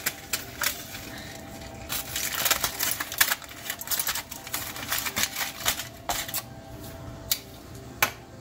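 Metal tongs clicking against the dish and aluminium foil crinkling as a roast rack of lamb is turned over in a foil-lined glass baking dish. There is a dense flurry of crackling about two seconds in, with scattered sharp clicks before and after it.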